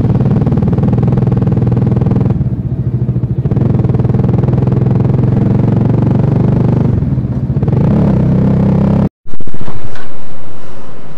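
Bajaj Dominar 400's single-cylinder engine running steadily under way, dipping briefly a little over two seconds in. About nine seconds in it cuts off abruptly, and a different, fading road sound follows.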